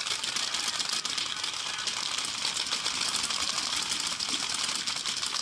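Paintball markers firing in a rapid, continuous crackle of many shots.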